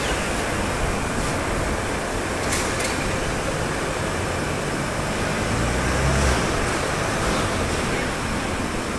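Steady industrial din of a large metalworking shop floor, machinery and ventilation running together as an even hiss and hum. A low rumble swells briefly about six seconds in, and a faint clink is heard early on.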